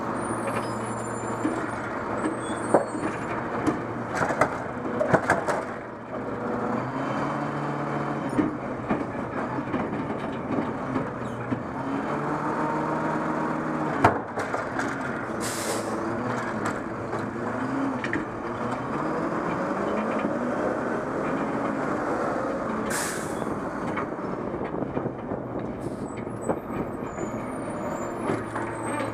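Diesel engine of a McNeilus automated side-loader garbage truck running and speeding up and slowing again as the hydraulic arm reaches out, grips, lifts and dumps a cart, with metal clanks from the arm and cart. A sharp bang comes about halfway through, followed by two short air hisses.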